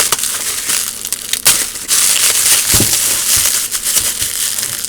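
Plastic packaging and bubble wrap crinkling and crackling as it is handled and pulled at, with irregular sharper cracks.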